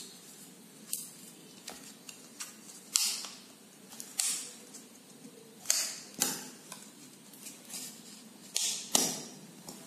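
A piston ring being sprung over plastic guide strips onto a Royal Enfield piston: about seven sharp, unevenly spaced clicks and snaps of the ring and strips against the piston.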